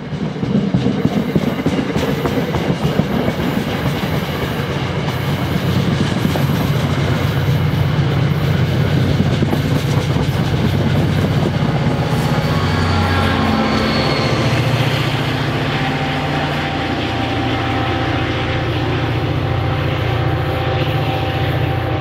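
Metro-North diesel push-pull passenger train going by close, its Comet coaches' wheels clattering over the rails. The steady drone of the GP40PH-3C diesel locomotive's engine grows stronger about halfway through.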